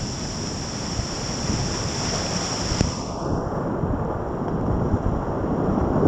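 Whitewater of a steep creek rapid rushing loudly around a kayak, heard close from the boat, with buffeting on the microphone.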